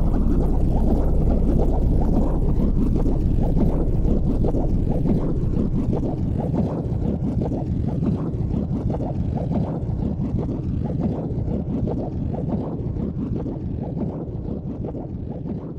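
Low, dense rumbling noise with no clear pitch, steady at first and slowly fading over the last several seconds.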